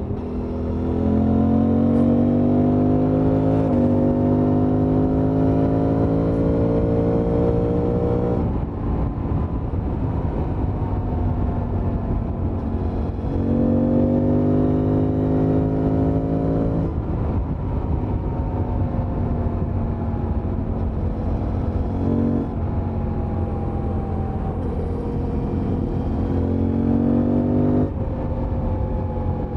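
Suzuki V-Strom 800DE's 776 cc parallel-twin through its stock exhaust, accelerating hard through the gears: the pitch climbs, drops at a shift about four seconds in, climbs again, then falls away as the throttle closes. It pulls hard again, cruises with further rises and falls in pitch, and ends with a long steady climb cut off near the end. Wind noise on the microphone runs under the engine.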